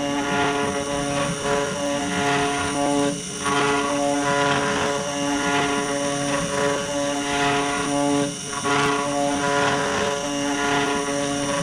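CNC 3018 Pro router carving wood: its small spindle motor whines steadily along with the cutter in the wood, the sound dipping briefly twice as the machine moves.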